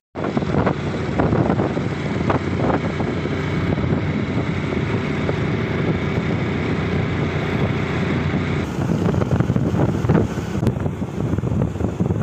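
Wind rushing over the microphone of a small motorcycle being ridden along a road, with the bike's engine running underneath.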